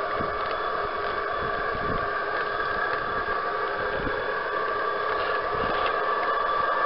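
G-scale model train running along garden track: a steady electric-motor and gear whine over a constant hum, with a few soft low knocks.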